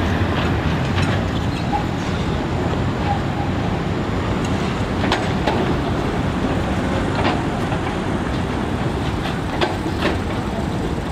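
Tram passing slowly through a junction: a steady low rumble from its steel wheels on the rails, with several sharp clicks as they run over rail joints and points. Car traffic runs along underneath.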